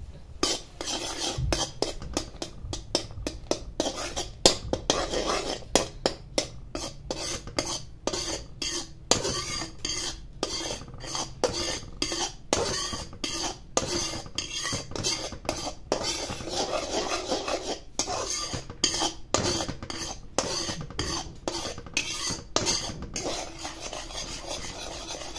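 Metal spoon scraping and clicking against a kadhai in quick, irregular strokes, stirring milk and milk powder as they cook down into instant khoa.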